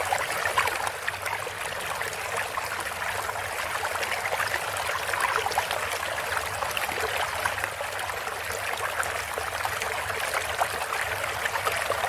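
Sound effect of running, trickling water: a steady rush with a fine crackle of tiny splashes and a low steady rumble underneath.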